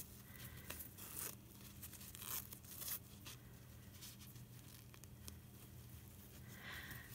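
Faint rustling and scraping of cotton and silky quilt scraps being handled and pinned through a muslin foundation, in a few short strokes, over a steady low hum.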